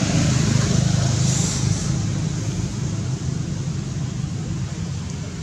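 A motor engine running steadily, slowly fading.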